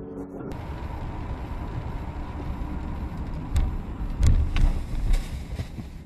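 Dashcam recording from inside a moving car: steady road and engine noise with a faint steady whine, and several heavy thumps about three and a half to five seconds in.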